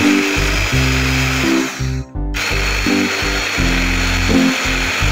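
Electric hand-blender chopper whirring as it chops mint leaves, with a thin steady whine; the motor stops briefly about two seconds in and then runs again. Background music plays under it.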